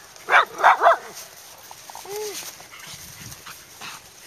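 Small dogs barking: three sharp, loud barks in quick succession about half a second in, from toy poodles meeting another small dog.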